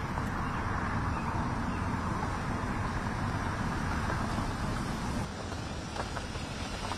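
Steady outdoor street background: a hum of road traffic, growing a little quieter about five seconds in.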